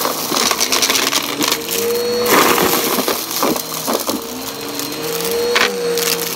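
Bissell upright vacuum running over carpet with a steady whine, its pitch sliding up and down as it is pushed back and forth. It crunches and crackles as it sucks up scattered debris, loudest about two seconds in and again near the end.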